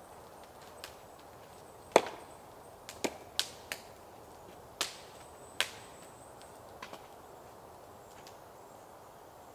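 Wood being chopped with an axe: sharp, irregular knocks and cracks, about seven strikes. The loudest comes about two seconds in.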